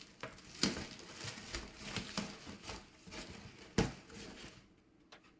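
A package being handled and unpacked: rustling and crinkling with scattered small clicks and two louder knocks, one about half a second in and one near four seconds.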